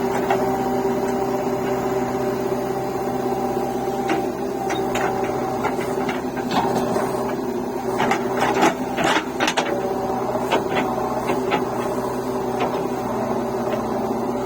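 Heavy diesel engine running steadily at work, with scattered knocks and clanks that come thickest about eight to ten seconds in.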